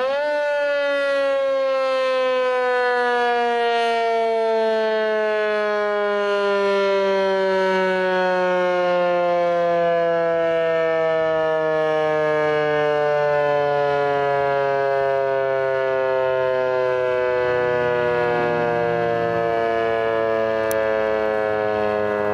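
Outdoor tornado warning siren sounding one long steady tone during its monthly test. It comes up to pitch at the very start, then holds at an even loudness while its pitch slowly sinks.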